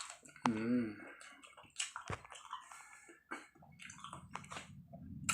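Close-miked wet chewing and mouth smacking of someone eating leafy vegetable salad and rice by hand, with many small clicks and squishes. A brief wavering pitched sound comes about half a second in.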